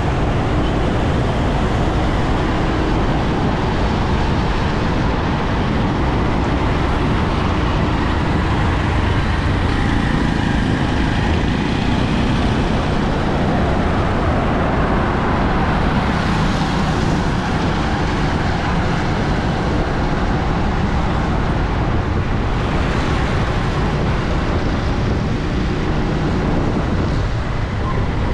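Steady, loud road traffic noise from a city street, with engines running underneath.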